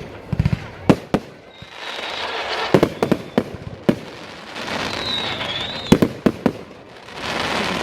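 Fireworks display: a series of sharp bangs as shells burst overhead, some in quick clusters. A brief high whistle sounds about five seconds in.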